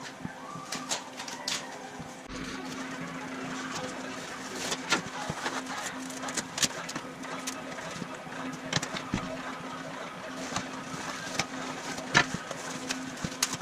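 Irregular sharp clicks and light knocks of cardboard being handled and worked, over a steady low hum.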